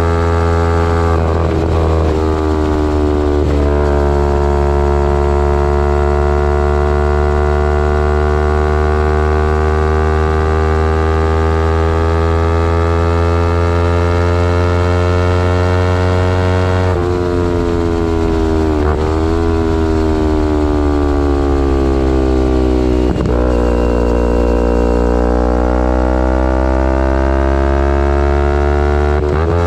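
Kawasaki Ninja 250R's parallel-twin engine through a full Graves race exhaust, running under way with its pitch slowly rising and falling. The note breaks and jumps in pitch briefly about two seconds in and several more times in the second half.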